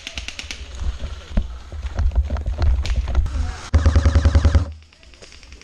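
Airsoft gun fire: scattered sharp pops and clicks, then a rapid full-auto burst of about ten shots in a second near the end.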